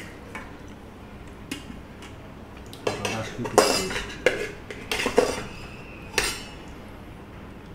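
Steel dishes and a spoon clinking and scraping, in a cluster of clatters from about three to five seconds in and one more a little after six seconds.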